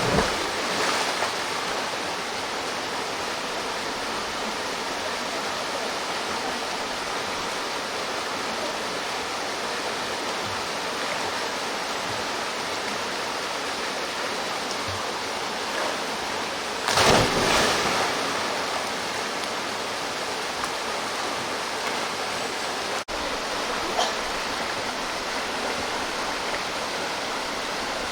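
Waterfall rushing steadily into its plunge pool. There is a louder burst of splashing right at the start and another lasting about a second and a half just past the middle, typical of a diver hitting the water.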